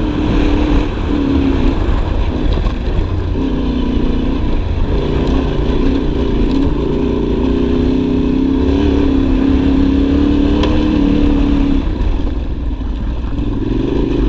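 Yamaha Ténéré 700 World Raid's parallel-twin engine running under way on a gravel track, its note holding and shifting in pitch with the throttle, then easing off about twelve seconds in.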